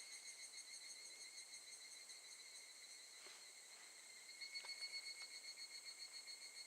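Higurashi (evening cicadas, Tanna japonensis) calling: a faint, high, rapidly pulsing trill that runs on steadily and grows slightly louder about four and a half seconds in.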